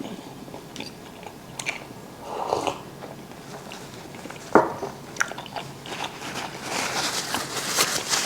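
Close crunching and crackling, with one sharp click about four and a half seconds in, and thicker crackling near the end.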